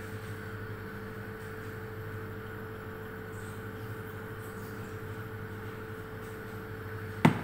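Steady low hum in a kitchen with a gas burner lit under a pot of water, then one sharp metallic clink near the end as a metal bowl is set down.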